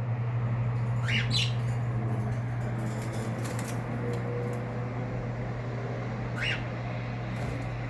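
Pet cockatiel and parakeets giving two short chirps, one about a second in and one near the end. A brief flurry of wing flaps comes midway. A steady low hum runs underneath.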